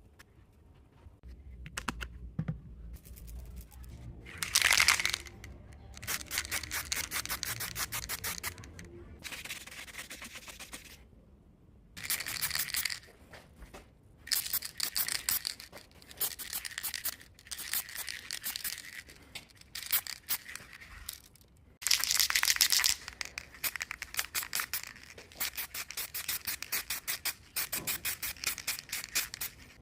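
Abrasive rubbing on a scuffed alloy wheel rim, consistent with hand sanding: runs of rapid back-and-forth strokes several seconds long, broken by short pauses.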